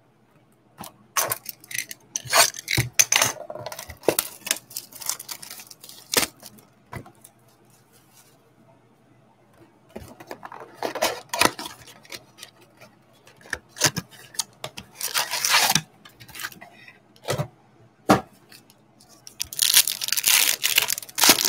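A trading-card blaster box and its card packs being ripped open by hand: several bursts of tearing and crinkling cardboard and wrapper, with sharp clicks in between. The loudest burst comes near the end.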